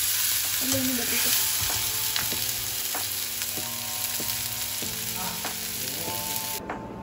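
Two seasoned steak patties sizzling in oil in a nonstick frying pan over a gas burner, a steady frying hiss. The sizzle cuts off suddenly near the end.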